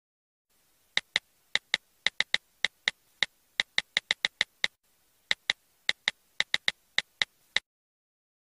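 Smartphone on-screen keyboard key clicks as a message is typed: about two dozen crisp, identical taps at an uneven typing pace, with a short pause midway. They stop over a second before the end.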